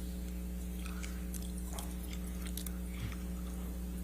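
Steady electrical hum with a few faint, scattered clicks and rustles: room tone in a pause between spoken turns.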